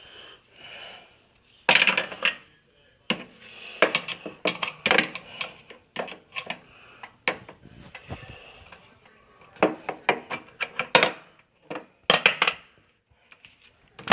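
Metal tools clicking, scraping and clattering against the steel hinge latch of an oven door as it is pried at to free a jammed clasp; irregular sharp clinks, some louder than others.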